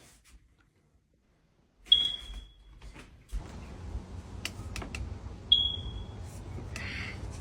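Two short, high-pitched electronic beeps about three and a half seconds apart, each fading quickly, over a low steady background hum that comes in between them.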